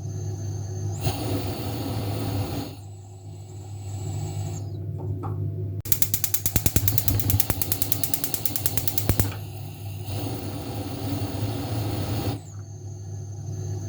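Gas stove igniter clicking rapidly, about ten clicks a second for some three seconds in the middle, between stretches of a steady hiss from the stove, over a low steady hum.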